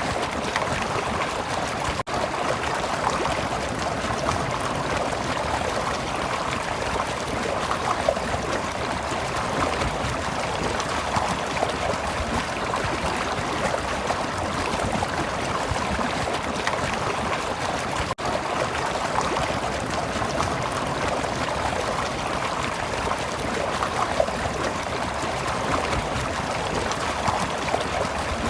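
Flowing stream: a steady rush of water with light gurgling and trickling. It is broken twice by a split-second gap, about two seconds in and about two-thirds of the way through.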